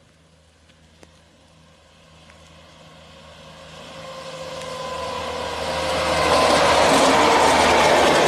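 Indian Railways WAP-7 electric locomotive hauling an LHB express at speed, growing from faint to loud as it approaches and passes, with a steady whine that drops a little in pitch as it comes by. The rush and rattle of the passing coaches follows near the end.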